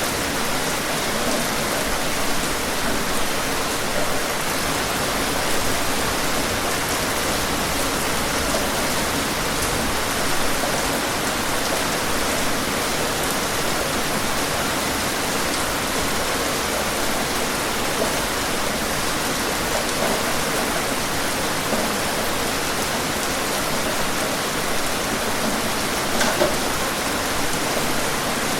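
Steady rain falling on a surface, an even hiss with individual drops tapping through it and one slightly louder drop about 26 seconds in.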